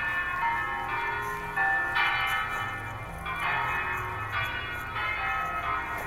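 Church bells ringing, a new stroke about once a second, each one ringing on in several tones.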